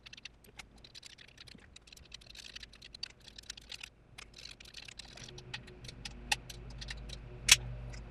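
Ratchet wrench clicking in quick, irregular runs as the cylinder head nuts are tightened, with one sharp, louder metallic click about seven and a half seconds in.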